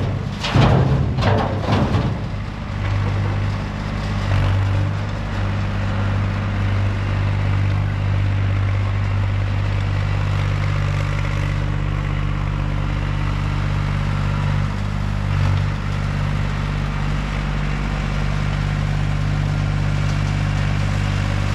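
A few clattering knocks in the first two seconds as the last bucket of fill drops into the steel dump bed of a Ford L8000 dump truck, then heavy equipment engines running steadily as a John Deere 350C crawler loader backs away and pulls off.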